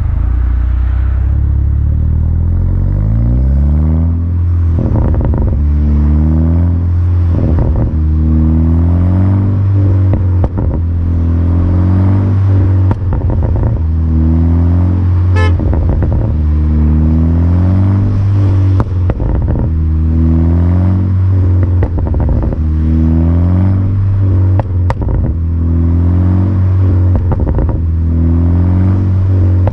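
VW Golf GTI Mk6's turbocharged four-cylinder through an Akrapovic exhaust, revved again and again with a rising rev about every two to three seconds. Sharp pops and crackles come from the exhaust among the revs: the overrun crackles of an Integrated Engineering tune.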